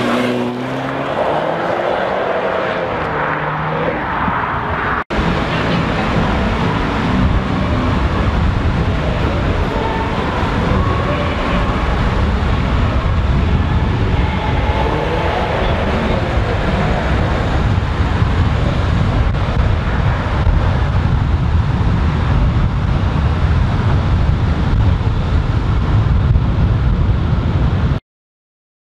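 Car driving: an engine note that rises and falls for the first few seconds, then, after a sudden break about five seconds in, steady road and wind noise that cuts off abruptly near the end.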